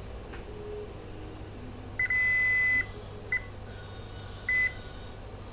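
Digital multimeter beeping in continuity mode on pin 2 of a laptop power-button flex cable. One long beep about two seconds in, then a short blip and another short beep. The beeps show the connection is continuous and the flex is intact.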